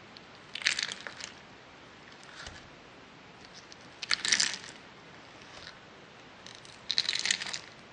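Foam-ball slime crackling and popping as fingers press and poke into it, in three short bursts a few seconds apart.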